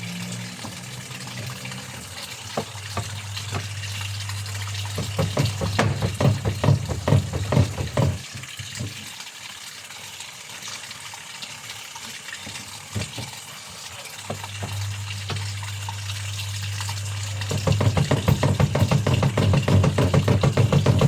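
Water running and splashing while laundry is washed, in two busy stretches with a quieter spell between, over a steady low hum. Insects trill steadily in the background.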